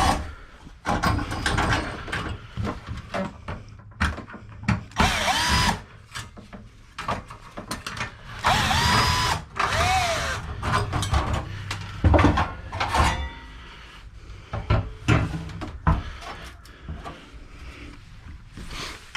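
Cordless drill unscrewing fasteners from an old desktop computer case in several short runs, its whine rising and falling with each run, among clicks and clatter of metal parts.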